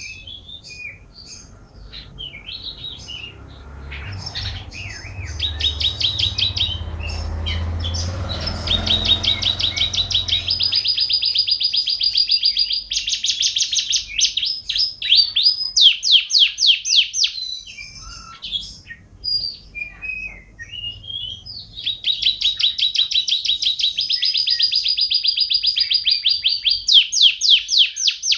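Domestic canary in full song: a long, continuous run of rapid trills and rolls, each phrase a fast string of repeated notes. A low rumble sits under the song for roughly the first ten seconds.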